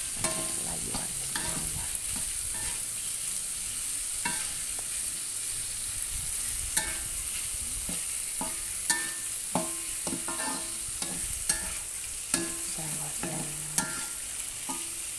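Sliced sausage, chillies and tomato sizzling in a wok while a metal spatula stirs and scrapes them, its strokes knocking against the pan at irregular intervals and making it ring briefly.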